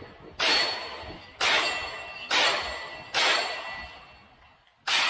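Five shots from a Canik Mete MC9 9mm pistol, fired about one a second with a slightly longer pause before the fifth. Each shot has a ringing tail that dies away.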